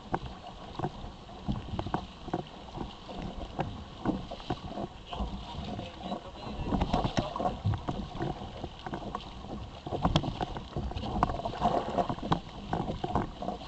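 Water slapping and splashing irregularly against the hull of a sit-on-top kayak (Ocean Kayak Malibu Two XL) under way, with wind buffeting the microphone. The slaps grow louder about halfway through.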